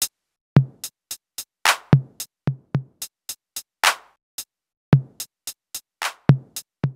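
Outro music: a bare drum-machine beat of deep kick thumps, snare hits and short hi-hat ticks, with gaps of silence between the strokes and no melody.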